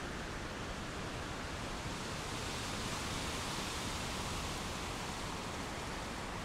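Storm wind rushing through the trees, a steady noise that swells for a couple of seconds around the middle.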